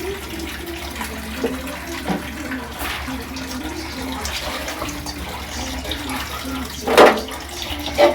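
Water running from a tap into a sink, a steady splashing flow for rinsing. A loud knock about seven seconds in and another just before the end.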